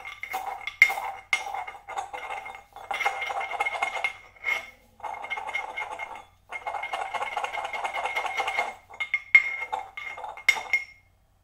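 Pestle working oven-dried dandelion leaves in a mortar, with a ringing tone throughout: sharp taps at first, then three long spells of steady grinding, then more taps near the end. The leaves are totally dry and crumble to a very fine powder.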